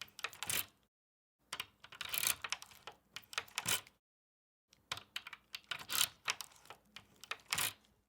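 Key being pushed into a door lock and turned to unlock it: quick runs of small metallic clicks and rattles. Three bursts split by short stretches of dead silence: one ends about a second in, the next two start about a second and a half and four and a half seconds in.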